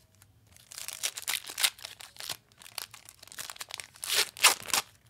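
Trading-card packaging crinkling and tearing by hand: a quick, irregular run of crackles with louder rips about one and a half seconds in and again near the end.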